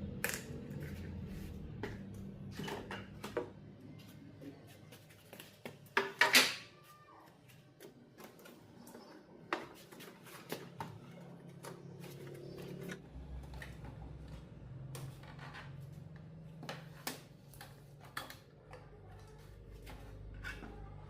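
Scattered light clicks and knocks of small hard parts being handled, with the loudest knocks about six seconds in, over a low steady hum.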